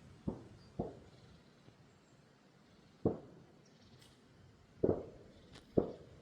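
Five dull thumps at irregular intervals, two close together near the start, then one about three seconds in and two more near the end.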